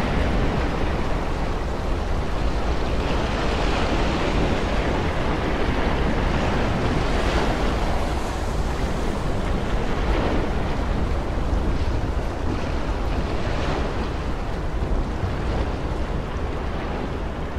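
Rough sea and strong wind at a warship's bow: heavy waves breaking over the deck in a continuous roar, with wind buffeting the microphone as a deep rumble.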